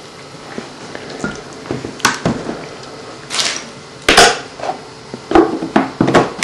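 Irregular knocks and clatter of kitchen things being handled and set down on a wooden board, loudest a little past the middle, with a few more sharp knocks near the end.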